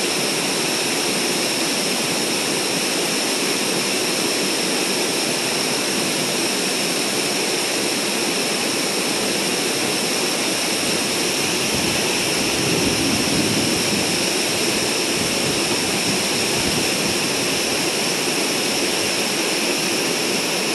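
Creek water rushing over rocks in shallow rapids: a steady, loud rush of white water.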